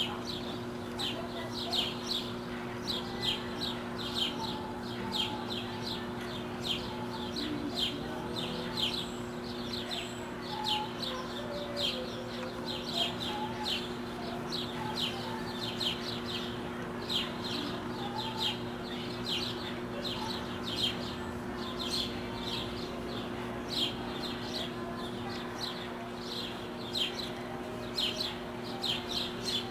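Ducklings peeping: many short, high chirps, several a second and irregular, over a steady low hum.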